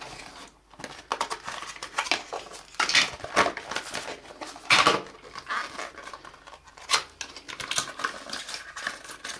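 Irregular rustling and clicking of a smartphone box's cardboard and packaging being handled as the accessories are lifted out, with a few sharper clicks about 3, 5 and 7 seconds in.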